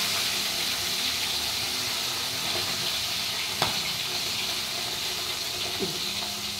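Fish sizzling as it fries in hot oil in a pan, a steady hiss, with one sharp knock about three and a half seconds in.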